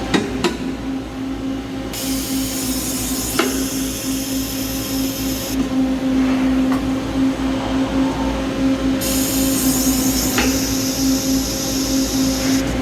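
Peddinghaus CNC beam drill line running: a steady machine hum with a strong steady tone, two spells of high hiss of about three and a half seconds each, one starting about two seconds in and one about nine seconds in, and a few sharp knocks.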